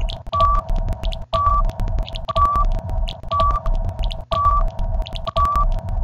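Countdown-timer music: an electronic loop with a short high beep about once a second over a steady tone, a pulsing bass and quick ticking. It briefly cuts out and restarts about every three seconds.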